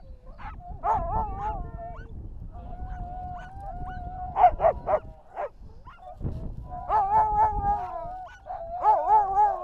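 Sled dogs (huskies) standing in harness at a halt, howling and yelping: long wavering howls mixed with short yips and barks, several dogs overlapping. This is the noise a stopped team makes when it is eager to run again.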